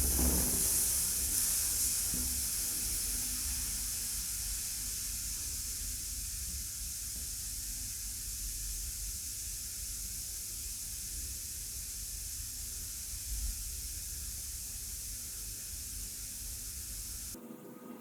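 A red-hot metal ball sizzles against noodles with a steady hiss that slowly fades, then stops abruptly near the end.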